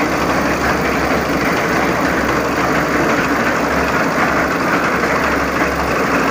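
Dongfeng 8 hp diesel engine of a 500-litre concrete mixer running steadily and loudly.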